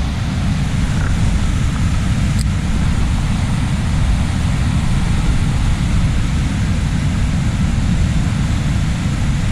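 Wind buffeting the microphone: a steady low rumble with a lighter hiss above it, unbroken throughout.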